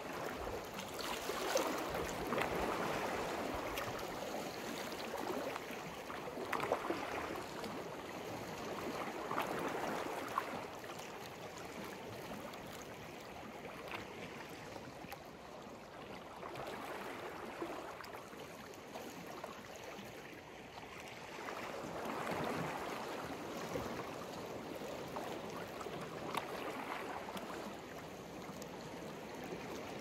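Sea waves washing up on the shore one after another, each swell rising and falling away, with a quieter lull in the middle.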